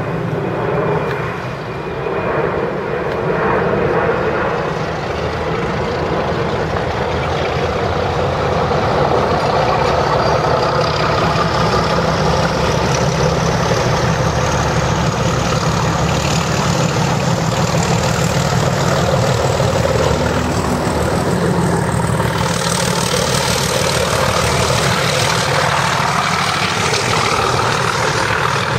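Brush Class 31 diesel locomotive working under power as it approaches with a test train: a loud, steady engine drone, joined by a thin whine that rises in pitch from about ten seconds in. The sound grows brighter about 22 seconds in as the locomotive draws close.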